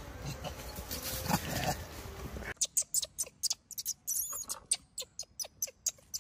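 Newborn macaque giving a quick series of short, high squeaks, about four or five a second, starting about two and a half seconds in. Before that there is a steady background hiss with a brief lower call about a second in.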